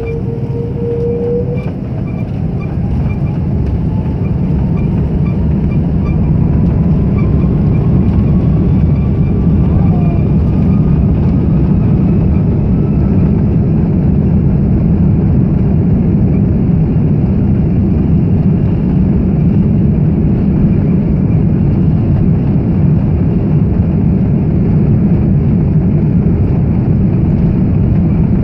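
Airbus A330's twin Rolls-Royce Trent 700 engines spooling up to takeoff thrust, heard inside the cabin. A whine rises in pitch over the first seconds while the low rumble swells, then the rumble holds steady and loud as the airliner accelerates down the runway.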